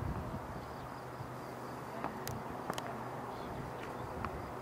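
Faint outdoor ambience: a low steady hum from the distant idling jet engines of a taxiing Boeing 747SP, with an insect chirping in a fast, even high rhythm and two sharp clicks about halfway through.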